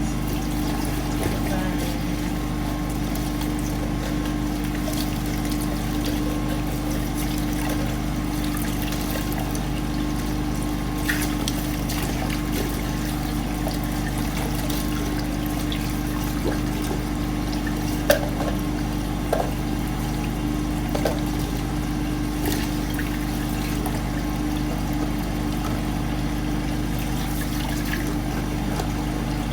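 Water running steadily, with a few light clicks and knocks now and then as the plastic reusable ice cubes are handled.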